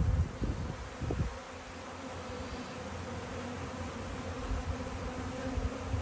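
A mass of honeybees buzzing steadily in an open hive box, a continuous drone, with a few low bumps in the first second or so.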